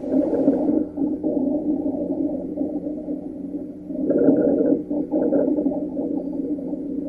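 Stethoscope recording of lung sounds. The breathing swells about every four seconds, and a low, continuous, musical sound runs through it: continuous adventitious breath sounds of the wheeze or rhonchus kind.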